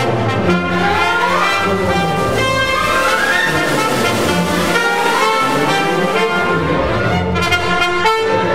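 Orchestral background music with brass, steady throughout.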